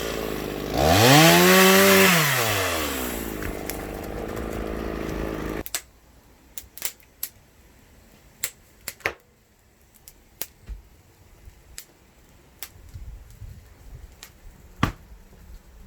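Chainsaw engine revving up and dropping back, then cutting off suddenly about six seconds in. Scattered light knocks and clicks follow, with one sharper knock near the end.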